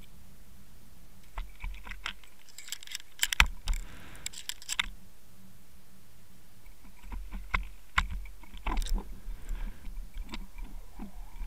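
Irregular sharp clicks and knocks of jigging tackle rattling against an underwater camera housing on the line, heard through the water. They come in two clusters, the first starting a little over a second in and the second from about seven seconds, over a low steady rumble.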